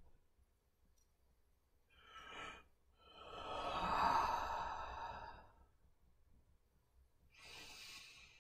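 A woman breathing deeply: a short breath about two seconds in, then a long audible sigh out lasting about two and a half seconds, the loudest sound, and another breath near the end.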